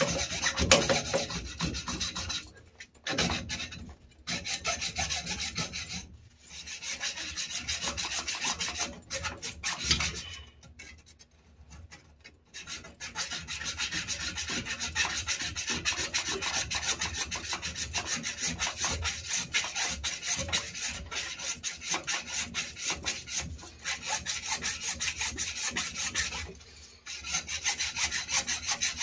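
Hacksaw cutting through an old metal water supply pipe with quick, steady back-and-forth strokes. It stops briefly a few times, for longest about 11 seconds in.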